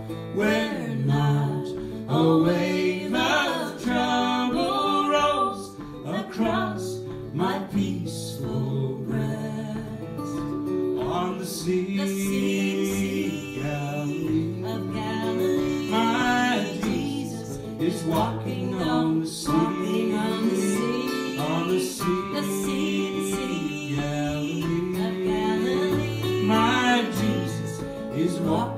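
A woman and a man singing a song together to acoustic guitar and fiddle.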